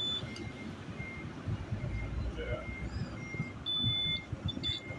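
Digital multimeter's continuity beeper giving a short, steady high beep, about half a second long, near the end, as its probes touch, with a briefer blip just after. A fainter, lower beep repeats about twice a second behind it, like a vehicle's reversing alarm.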